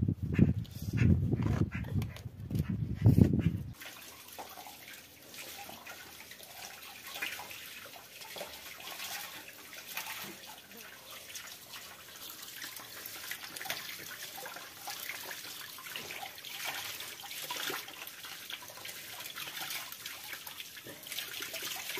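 Loud low rumbling and thuds for the first few seconds. Then tap water runs and splashes steadily into a bucket as a plucked chicken is rinsed under it.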